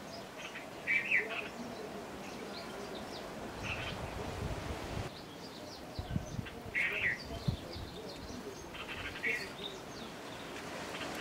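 Birds chirping in short bursts every couple of seconds over outdoor background noise, with a few low thumps in between.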